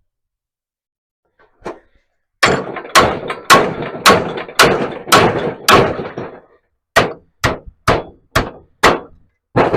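Hammer blows on steel plate during panel beating: about a dozen strikes, roughly two a second. The first run rings on after each blow, and a later run is shorter and sharper.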